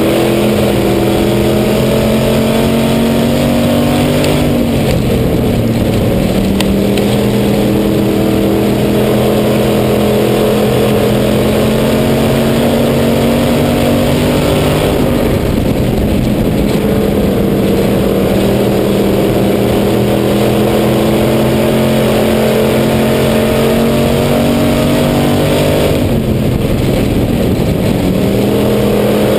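Hobby stock race car's engine heard from inside the car, pulling hard with its pitch climbing on the straights, then dropping as the throttle is lifted for the turns. It does this three times, roughly every ten to eleven seconds, over steady wind and tyre noise.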